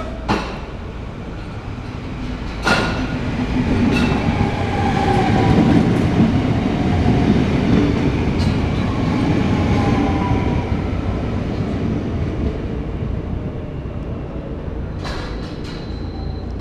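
NS VIRM double-deck electric intercity train running past close along the platform. The rumble of its wheels on the rails builds over the first few seconds, is loudest as the carriages go by, then fades. A few sharp clicks sound from the wheels and rails, with a cluster near the end.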